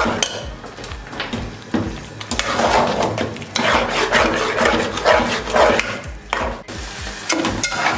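Slotted metal spatula scraping and stirring thick grated-carrot halwa against the sides and bottom of a metal pot in repeated uneven strokes, as the halwa is fried (bhuna) in ghee.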